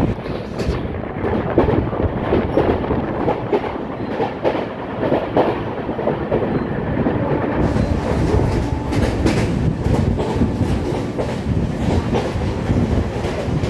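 Indian Railways LHB passenger coach running at speed, with a repeated knock roughly twice a second over the steady rolling noise of the wheels on the rails: the pounding of a flat spot on a wheel. About halfway through, the sound grows brighter and hissier.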